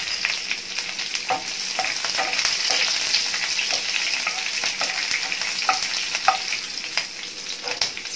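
Green chillies, ginger and curry leaves sizzling in hot oil in a nonstick frying pan, with a wooden spoon stirring and scraping against the pan in irregular light knocks.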